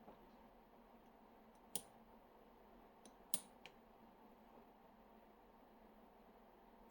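A few faint, sharp metallic clicks from a lock pick working the pins of an Inaho Tierkey lock under tension: one just before two seconds in, then a quick cluster of three at about three seconds in.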